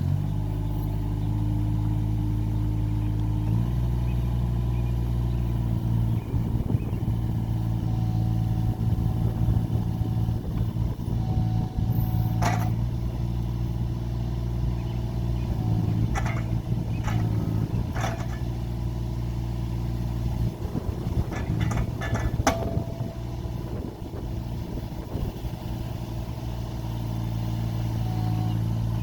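New Holland compact excavator's diesel engine running steadily just after it catches, its note shifting after a few seconds. Through the middle the engine note wavers unevenly, with several sharp metallic clanks, before it settles back to a steady run near the end.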